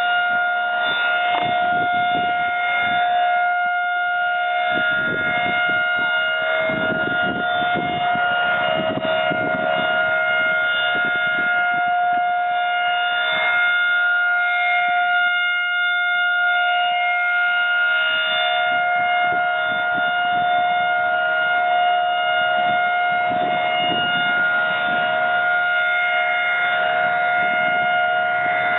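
Federal Signal Model 2001 outdoor warning siren sounding its three-minute steady alert signal: one continuous high tone with overtones, held at a constant pitch, as in a routine monthly test.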